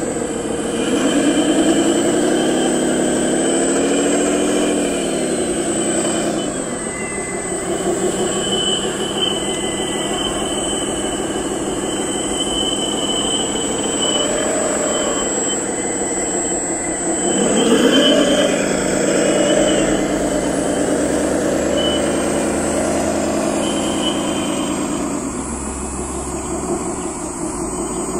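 Radio-controlled model wheel loader running, its motor and drive whining steadily, with the pitch rising and falling as it drives and works the bucket.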